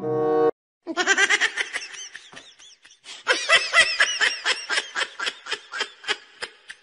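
A woman laughing hard in a long run of quick, high-pitched bursts; the laughter breaks off about two seconds in, starts up again, and its bursts grow shorter and fainter toward the end.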